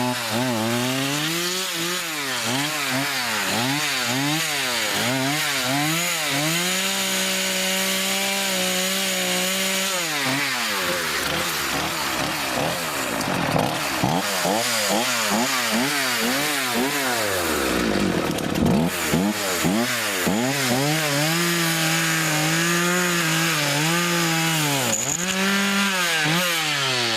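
Homelite gas chainsaw revving up and down again and again, twice held at full throttle for a few seconds, and dropping back toward idle twice.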